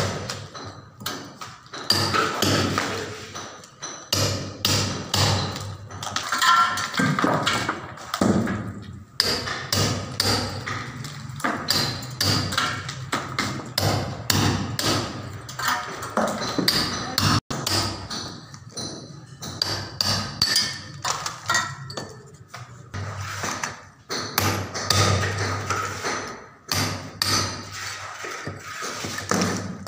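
Hammer driving a chisel into a brick wall, many sharp metallic strikes in irregular runs, cutting a chase for electrical wiring.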